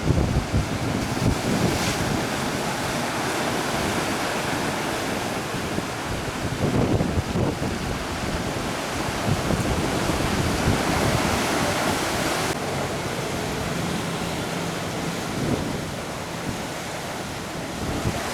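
Sea surf washing in steadily, with wind buffeting the microphone in low rumbling gusts.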